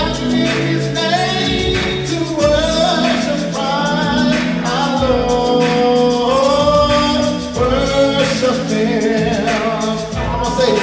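Gospel song sung over electronic keyboard chords, the voice holding long notes that bend in pitch.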